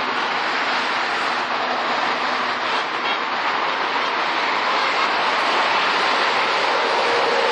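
Steady rush of dense multi-lane freeway traffic passing below: tyre and engine noise blending into one even roar that grows slightly louder in the second half.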